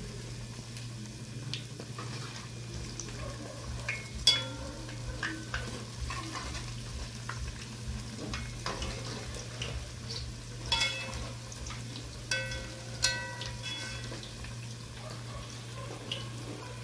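Saheena fritters sizzling steadily as they fry in hot oil in a metal pot, over a steady low hum. A metal slotted spatula scrapes and taps against the pot as the fritters are turned, with sharp ringing clinks about four seconds in and a cluster of them near the end.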